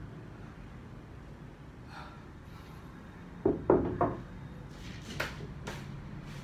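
Homemade cement dumbbells set down on a tiled floor: a few heavy clunks in quick succession about three and a half seconds in, followed by hard breathing after the set.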